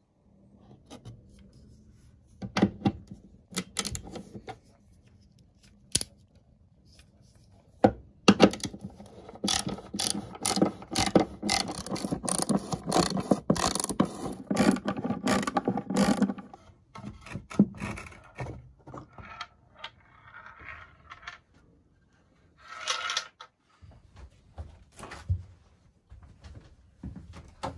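Hand ratcheting screwdriver clicking in quick runs as screws are backed out of wooden trim, with scattered knocks and clatter between the runs. The clicking is thickest about a third of the way in.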